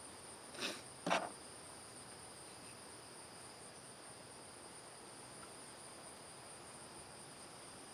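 Steady high-pitched insect chorus, two thin pitches holding throughout, with two short soft knocks or rustles about a second in.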